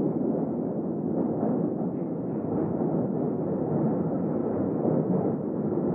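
London Underground train running, heard from inside the carriage as a steady low rumble.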